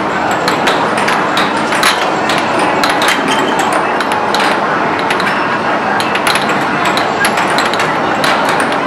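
Air hockey strikers and puck clacking in quick, irregular knocks as children play on an air hockey table, over the steady din of a busy arcade.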